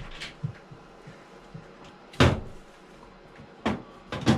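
Cupboard doors being opened and shut, giving a few sharp knocks and bangs. The loudest comes about two seconds in, and two more follow close together near the end.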